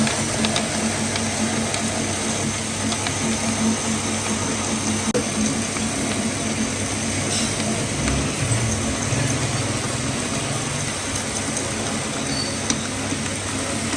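Metal lathe running steadily with a low hum, a few light clicks scattered through.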